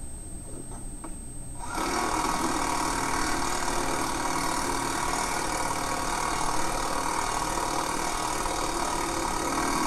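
Cordless impact driver running steadily, starting a little under two seconds in, as it drives a self-tapping hex bolt through a steel shock mounting bracket into the trailer frame.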